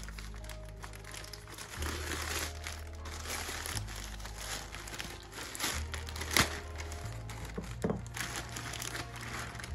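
Grey plastic poly mailer bag crinkling as it is cut open with scissors and handled, with a sharp snap about six seconds in. Background music plays underneath.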